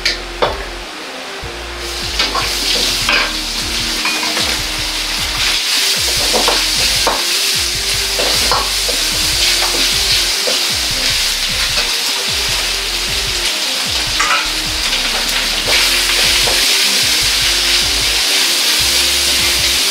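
Food sizzling hard in a hot wok as it is stir-fried, with a metal ladle scraping and knocking against the wok. The sizzle gets louder about two seconds in, when sausage and vegetables go into the oil.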